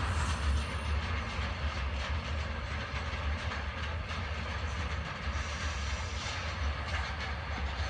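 Train rolling slowly, a steady low rumble with faint clicks of wheels over rail joints.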